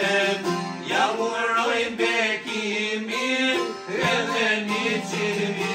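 Live folk music on long-necked plucked lutes, with a man singing over them in wavering, drawn-out notes.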